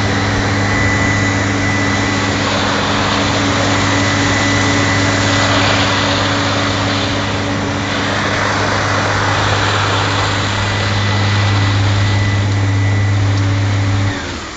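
An Oshkosh truck's diesel engine running steadily at high speed, a deep hum under a loud rushing noise that swells and eases a couple of times. The sound drops off sharply about fourteen seconds in.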